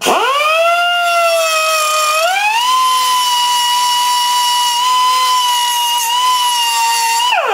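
Handheld electric tool spinning a small cutoff disc through steel angle: a loud motor whine that starts at once, sags in pitch, climbs about two seconds in and holds steady, then winds down near the end as the tool is switched off.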